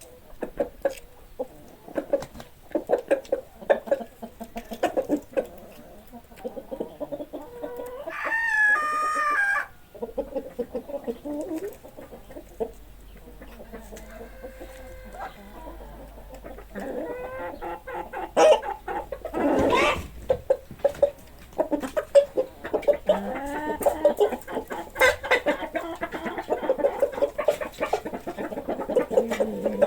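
Chickens clucking continuously in a henhouse, with one long, loud crow lasting about a second and a half, about eight seconds in. A loud sudden outburst comes around twenty seconds.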